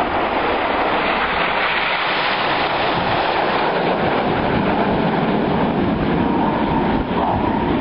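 Loud, steady roar of a jet aircraft's engines in flight.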